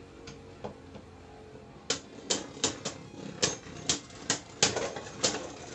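Slash Valkyrie and Wizard Fafnir Beyblade Burst tops spinning in a plastic stadium. At first there is a faint steady whir, then from about two seconds in a run of sharp clacks, two or three a second, as the tops collide.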